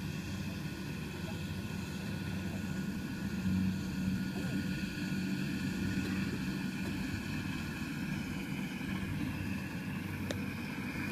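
Kubota combine harvester running steadily as it harvests rice, a continuous engine drone with a fainter steady whine above it.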